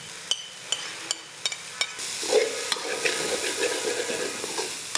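Metal slotted spoon stirring chicken mince frying in a metal karahi: a few sharp clicks of the spoon first, then about two seconds in steady scraping and clinking against the pan over the sizzle of the frying mince.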